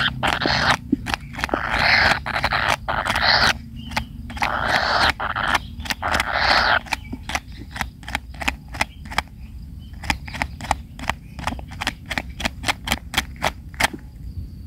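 Kingfisher chicks in the nest giving a series of harsh rasping calls, then a run of sharp clicks, about three a second.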